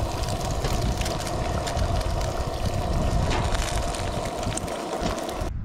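Wind buffeting the microphone over a steady hiss and crackle of eggs frying in a cast-iron skillet on a camp stove. The hiss cuts off abruptly near the end.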